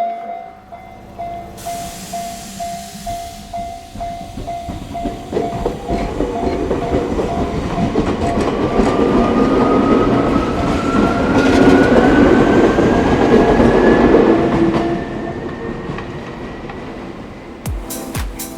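A level-crossing warning bell rings in a steady repeated pulse while an electric train passes over the crossing, its wheels rumbling and clattering on the track. A motor whine rises steadily in pitch as it goes by. The bell stops once the train has passed, and music starts near the end.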